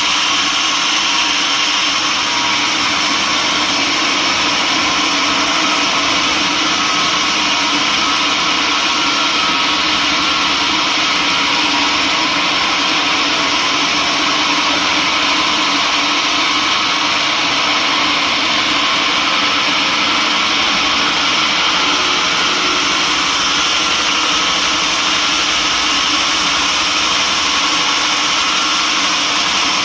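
Sawmill machinery running steadily: a loud, unbroken machine noise with no pauses or changes.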